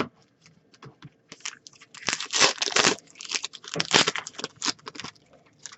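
Crinkling and tearing of a foil trading-card pack wrapper being opened, in a few loud crackling spells.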